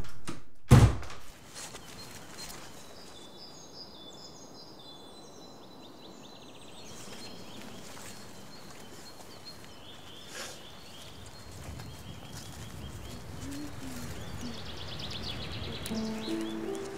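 A single sharp thump about a second in, then quiet woodland ambience with small birds chirping in short high calls. A few held low musical notes come in near the end.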